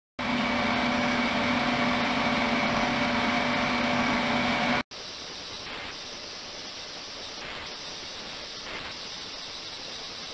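Ultrasonic tank running: a steady hiss from the ultrasonically driven water, with several steady tones over it in the louder first part. It cuts off abruptly about five seconds in and continues as a quieter hiss.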